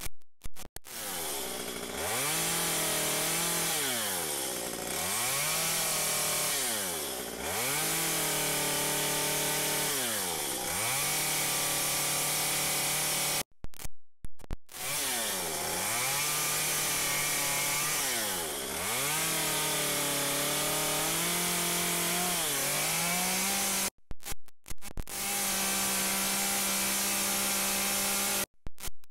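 Stihl MS 193 C small two-stroke carving chainsaw running at high revs and cutting into wood. The engine pitch sags and comes back up again and again as the bar is worked in and out of the cuts. The sound breaks off abruptly for a moment a few times.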